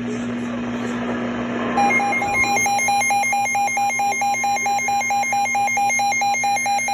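Weather radio alert alarm sounding a rapid, even run of beeps for a tornado warning. It starts about two seconds in, after a stretch of radio hiss.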